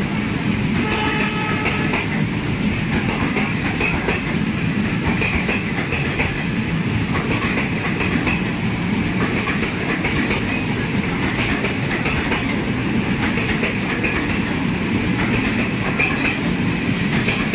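Indian Railways passenger coaches rolling past close by: a steady rumble with the clickety-clack of wheels over rail joints.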